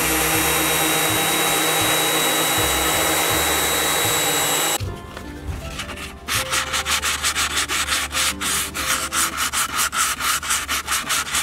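Hammerhead random orbital sander running steadily on a wooden tabletop for nearly five seconds. After a short quieter gap, a sheet of sandpaper is rubbed quickly back and forth by hand over the wood in many short, even strokes.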